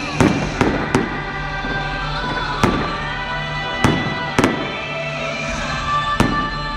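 Fireworks shells bursting in sharp bangs, seven in all, spaced irregularly about half a second to two seconds apart, over continuous music accompanying the display.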